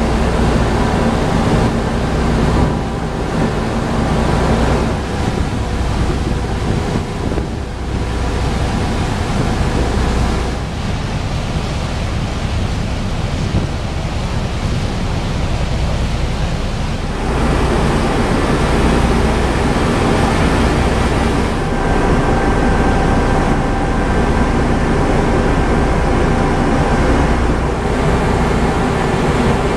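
Wind buffeting the microphone on the deck of a moving ferry, over the steady drone of the ship's engines and the rush of its wake. The noise grows a little louder a little over halfway through.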